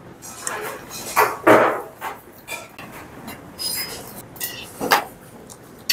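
Brass rice bowls, lids and spoons clinking and knocking on a dining table as rice is dished out. Two louder short sounds stand out, one about a second and a half in and one near the end.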